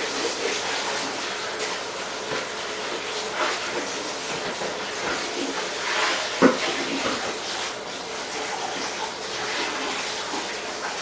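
Kitchen tap running, water splashing into the sink. One sharp knock about six and a half seconds in.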